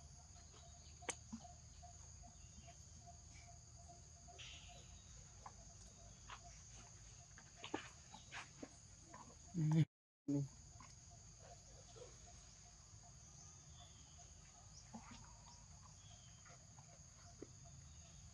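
Steady high-pitched insect chorus with scattered small clicks and rustles. About halfway through there is a short dull thump, and the sound cuts out for a split second.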